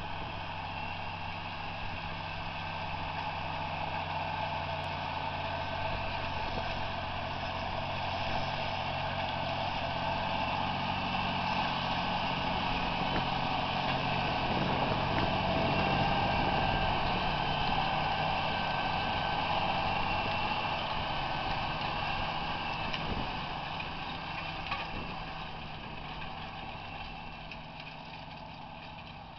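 John Deere 8320R tractor's six-cylinder diesel engine running steadily under load as it pulls a Horsch disc harrow through the soil. It grows louder as the tractor passes close about halfway through, then fades as it drives away near the end.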